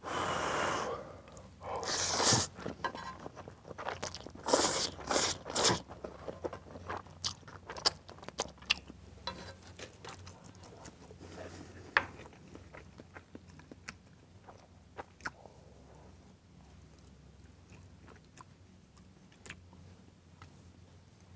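Close-miked eating of black-bean-sauce instant noodles mixed with spicy Buldak noodles. There are a few loud slurps in the first six seconds, then wet chewing with small clicks that grows quieter.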